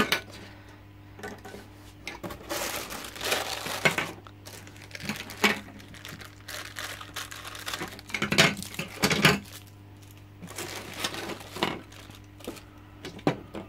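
Plastic packaging bag crinkling and rustling in irregular bursts as it is handled and cut open with scissors, with a few sharp knocks of hard plastic filter parts.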